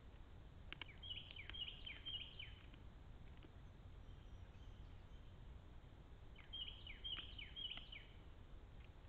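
A songbird singing twice, each song a quick run of repeated chirping notes lasting about two seconds, the second starting about five seconds after the first, over a faint low background rumble.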